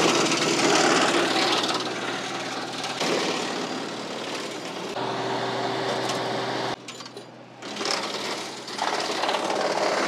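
A WoodMaxx MX8600 PTO-driven wood chipper chewing up small branches pushed into its hopper by hand, over the steady running of the compact tractor that drives it. The noise drops off for about a second near seven seconds in, then picks up again.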